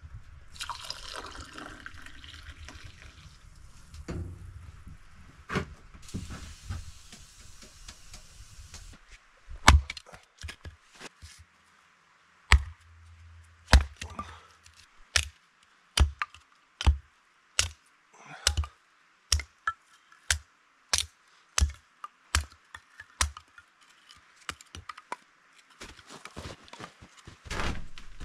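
Chopping: a long, steady run of sharp chops, about one every second, starting about ten seconds in, with a soft hissing rustle before it.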